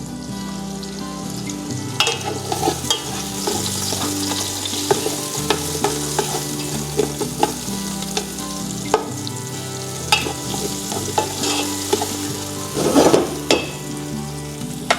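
Chopped onion sizzling in hot canola oil in a pan over high heat, as it begins to sauté and soften. A utensil stirring it makes irregular clicks and scrapes against the pan, with a louder burst of stirring near the end.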